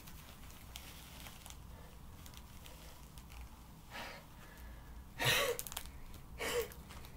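A person breathing out in three short, heavy huffs about four, five and six and a half seconds in, the middle one loudest, from the effort of pulling on a fursuit body. Before them there is faint rustling of the suit's faux fur as the arms are worked into the sleeves.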